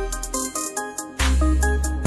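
Background electronic music with held synth notes and a deep bass; the bass drops out briefly and comes back in about a second in.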